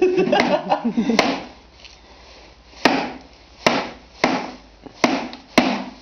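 A claw hammer driving nails through a black roofing sheet into a wooden bird house roof: about eight sharp, uneven strikes, three close together at first, then a pause of over a second before five more.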